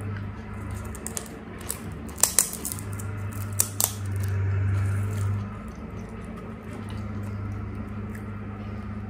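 Crisp, hollow pani puri shells cracked open with the fingers: two sharp crackles about two seconds in and two more near four seconds, over a steady low hum.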